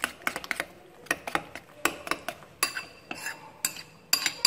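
Metal spoon stirring a mix of beaten egg and minced pork in a ceramic bowl, clinking irregularly against the bowl's sides many times.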